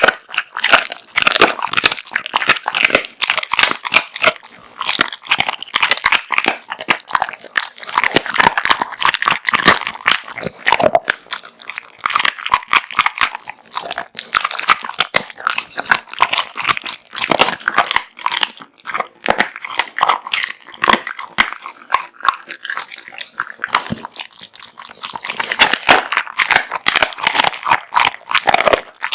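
American Bully dog eating raw food close up: rapid, dense crunching and chewing bites, with a couple of brief pauses.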